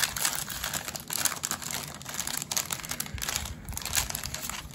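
Shiny plastic wrapper of an oversized Pokémon First Partner card pack crinkling and crackling as hands tear it open and pull it apart, a continuous run of small crackles.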